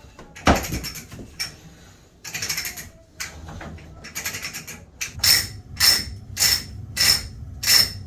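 Pipe-threading die being turned on pipe with cutting oil, making a series of short scraping strokes. A sharp one comes about half a second in, then they settle into a regular rhythm of roughly two strokes a second in the second half.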